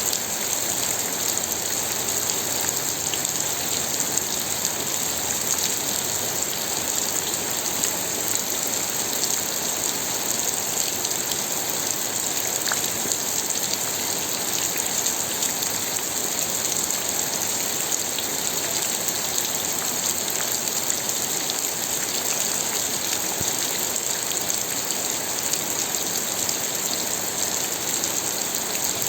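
Steady rainfall pattering on a surface, an even wash of rain noise with scattered small drop ticks.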